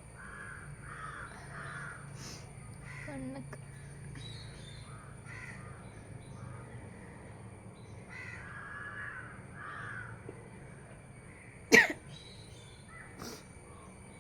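Crows cawing in short runs of several caws, then a single loud, sharp cough near the end.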